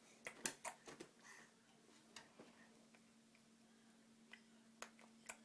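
Near silence with a faint steady hum and scattered small clicks, several in quick succession in the first second and a few single ones later.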